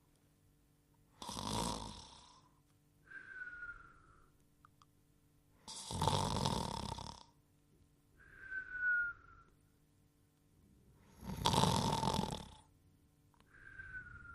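Cartoon snoring: three rounds of a loud rasping snore, each followed about a second later by a short, thin whistle that dips slightly in pitch, repeating about every five seconds.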